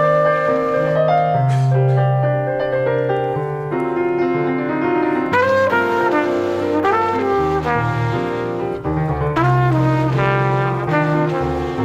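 A band playing music, with a horn section of trumpets and trombones holding chords over piano.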